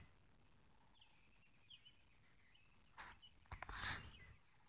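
Faint background birds chirping in short calls. About three and a half seconds in there is a brief rush of noise that swells and fades within half a second, the loudest sound here.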